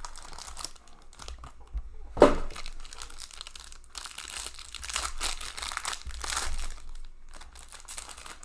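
Plastic wrapping on a sealed box of hockey cards being torn open and crumpled, crinkling on and off, with one loud sudden tear about two seconds in.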